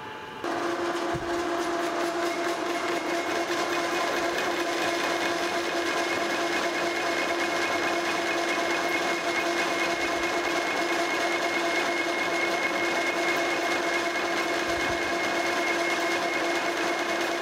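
Geared-head metal lathe starting up about half a second in and running steadily with a constant gear whine, taking a power-feed facing pass across a flame-cut steel plate.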